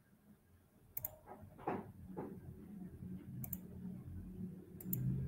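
A few sharp double clicks of a computer mouse, spaced a second or more apart, with a brief rustle about two seconds in over a faint low background hum.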